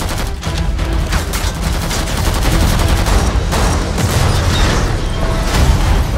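Action-film sound effects: rapid machine-gun fire with many shots in quick succession, mixed with explosion booms.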